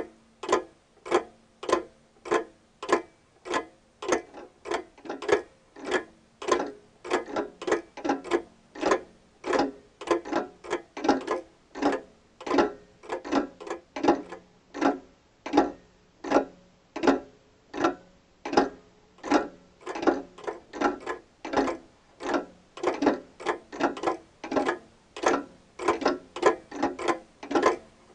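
A steady train of sharp ticks or knocks, about two a second without a break, each with a short ring, over a faint low hum.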